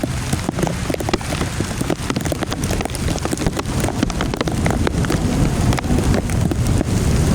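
Heavy storm rain pelting down, with many single drops ticking close by and a steady low rumble beneath.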